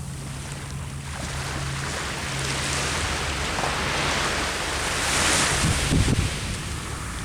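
Sea waves washing onto the shore, one wave swelling to its loudest about five to six seconds in and then ebbing away, with wind rumbling on the microphone.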